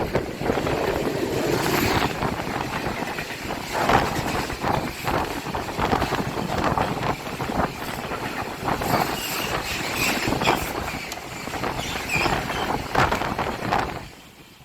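A train passing close by: a loud rushing rumble with repeated knocks from the wheels on the rails, falling away near the end.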